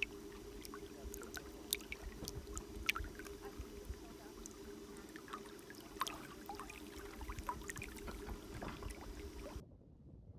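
Small waves lapping at a lake's edge, with many small irregular splashes over a steady low hum. About nine and a half seconds in this gives way abruptly to a faint, dull rumble.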